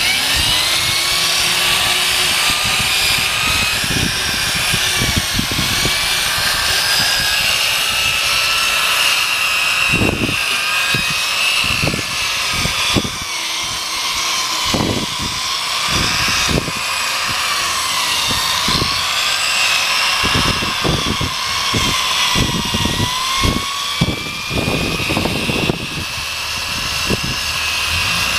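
Electric drill spinning a sanding pad against a plastic headlight lens. The motor whine comes up to speed at the start and then runs steadily, sagging in pitch a few times in the second half, over the scuffing of the pad on the lens.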